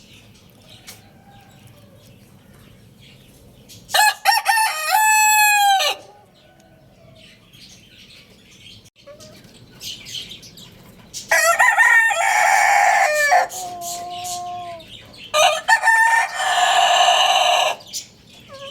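Roosters crowing three times, a few seconds apart, each crow a long call of about two seconds. A quieter, falling bird call follows the second crow.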